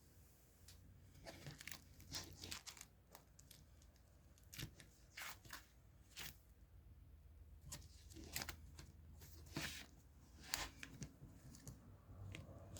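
Paper and sticker sheets being handled by hand, torn, cut and crinkled, in scattered short rustling strokes.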